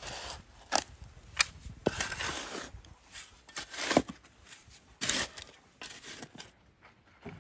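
Steel spade digging into dry, stony soil: a series of irregular strikes and gritty scrapes as the blade bites in and loose earth and gravel crunch and spill.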